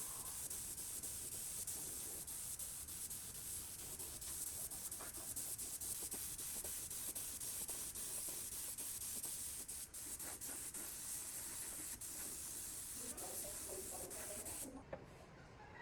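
Steady, high-pitched spraying hiss with a few faint clicks, cutting off suddenly near the end.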